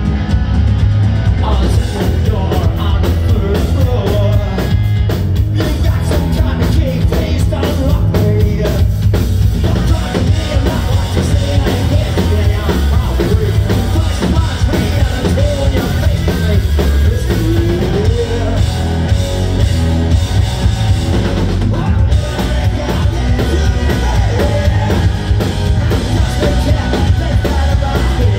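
Live rock band playing loud and continuously: electric guitar, bass guitar and a pounding drum kit, with lead vocals over the top.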